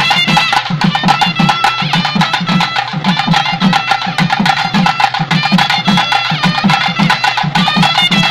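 Traditional South Indian festival music: barrel drums beating a fast, steady rhythm beneath a high reed pipe playing a wavering melody.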